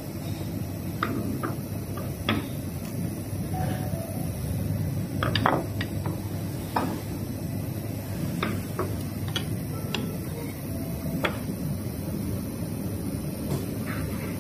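Irregular clinks and taps of utensils against bowls and dishes, a dozen or so light knocks, over a steady low hum.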